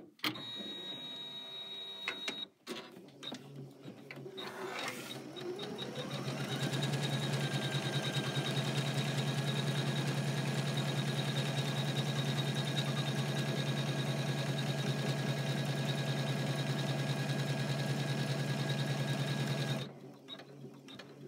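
Janome 500E embroidery machine stitching, with a brief high whine near the start. About five seconds in it speeds up with a rising whine, runs steadily at speed with fast, even needle strokes, and stops near the end.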